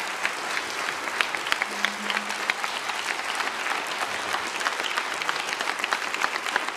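Audience applauding, a dense steady clapping of many hands, some people standing.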